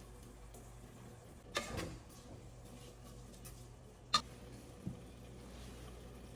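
Kitchen handling sounds over a low steady hum: a short clatter about one and a half seconds in, a sharp click near the middle, and a dull knock soon after, like utensils and containers being set down and moved while cooking.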